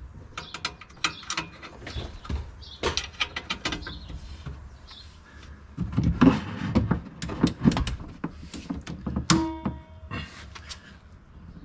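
Irregular clicks and knocks of hand tools and metal parts while a rear shock absorber is assembled, heavier and more frequent in the second half, with a brief metallic ringing tone near the end.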